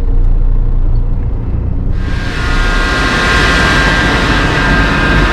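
Low, steady engine rumble; about two seconds in, a loud steady hiss with a high whine sets in suddenly and keeps going.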